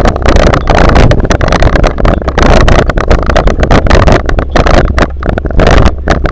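Vehicle driving slowly along a rough dirt track: loud steady engine and road rumble, with constant irregular rattling knocks on the camera microphone.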